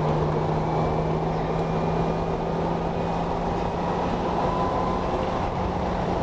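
1976 Datsun 280Z's fuel-injected L28 straight-six running at a steady engine speed as the car cruises, with road noise underneath; the engine note holds one pitch without revving up or down.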